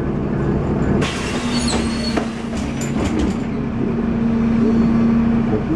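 MAZ 103 city bus with a manual gearbox, heard from inside the passenger cabin: the diesel engine runs with a steady drone, its note rising slightly as the bus pulls away. About a second in there is a hissing rush with a few clicks that lasts a couple of seconds.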